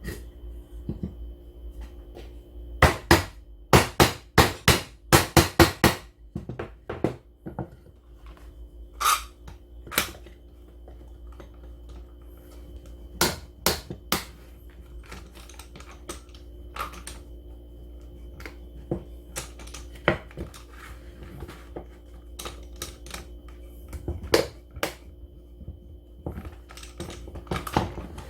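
Sharp clicks and knocks, as of hard objects being handled, in a quick run of about a dozen between three and six seconds in and then scattered, over a steady low hum.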